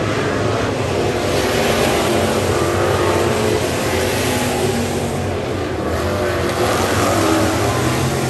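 Several dirt-track race cars running laps together on a clay oval, their engines blending into one steady, loud drone.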